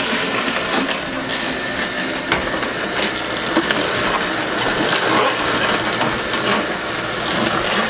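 Vertical slow juicer crushing celery and cucumber mixed with ginger: a steady grinding crunch with many small cracks and snaps throughout.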